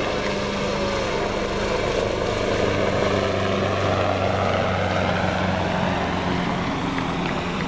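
AgustaWestland HH-139A (AW139) twin-turbine helicopter in flight overhead: its five-blade main rotor and engines run steadily, with a low rotor hum that fades a little near the end as the helicopter turns away.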